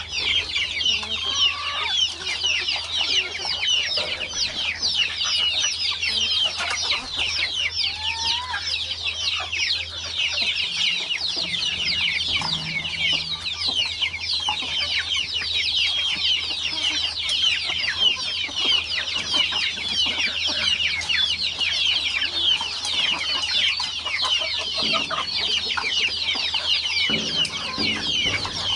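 A flock of village chickens (ayam kampung) calling at once: a dense, unbroken chorus of high, short, falling peeps with a few lower clucks among them.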